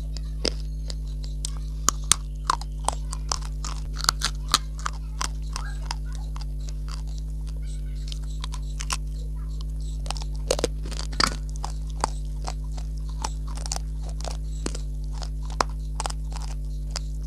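Close-up biting and chewing of dry, chalky clay chunks: sharp crunches and snaps at irregular intervals, with clusters around four seconds in and again around ten to eleven seconds in. A steady low hum runs underneath.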